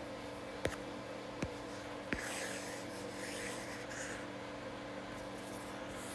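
Stylus tapping three times on a tablet's glass screen, sharp clicks a little under a second apart, then sliding across it in a scratchy stroke for about two seconds as a box is drawn. A steady faint hum sits underneath.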